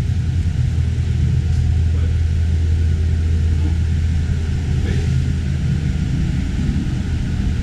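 Car engine running at low speed as the car maneuvers a trailer into a garage, a steady low rumble throughout.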